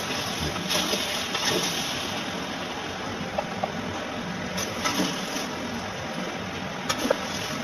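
Steady rushing background noise, with a few light clicks and scrapes from a metal skimmer against the kazan as stewed meat and vegetables are lifted out onto a plate.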